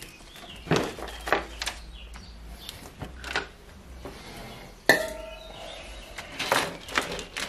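Parts of a methanol injection kit being handled and set down: scattered clicks, knocks and clinks. One sharper clink about five seconds in rings briefly.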